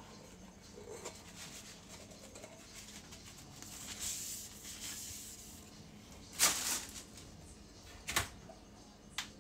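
Washing dishes at a sink: quiet handling with a soft hiss midway, then a sharp clatter of dishes about two-thirds of the way through and two smaller knocks near the end.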